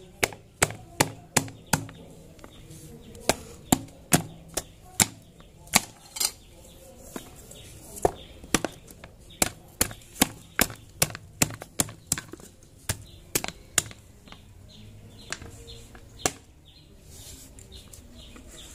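A wooden pestle pounding green oleaster fruits in a plastic bowl: a string of sharp knocks, irregular, about two a second, with a few short pauses.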